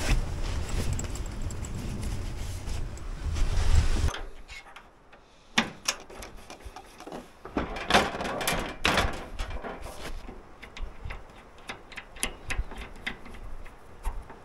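A steady rushing noise for about four seconds. It then drops suddenly to a quieter background, with a string of irregular light clicks and knocks as camp gear is handled.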